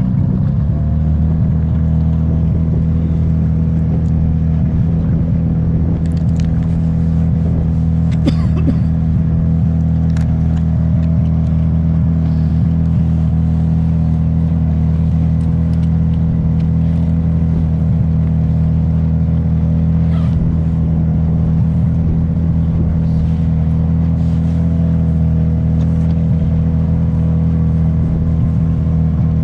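Motor of a wooden pirogue running steadily under way, a low, even drone, with a few faint clicks about a quarter of the way in.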